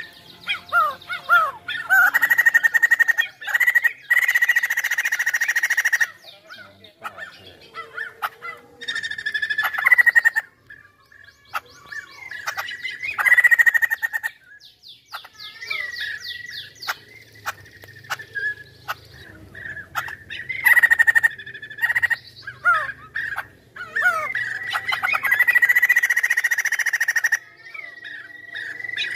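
White-crested laughingthrush singing steadily: loud whistled notes mixed with several bursts of rapid, harsh chattering.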